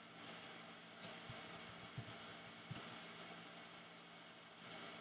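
Computer keyboard keys and clicks tapped sparsely, about six light, sharp taps spread over a few seconds, over a faint steady hum.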